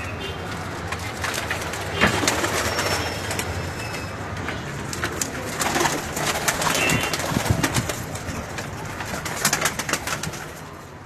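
Domestic pigeons cooing, with many scattered clicks and rustles mixed in.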